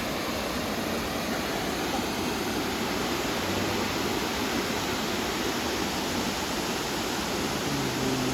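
Blackwater Falls, water pouring down the falls with a steady, even rushing noise that doesn't let up.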